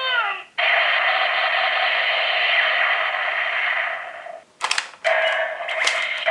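Electronic sound effects from a Kyoryuger Gaburevolver toy, played through its tiny speaker with a thin, tinny quality. A recorded voice line ends, then a steady buzzing effect lasts about four seconds. Near the end come sharp clicks and a new burst of effects.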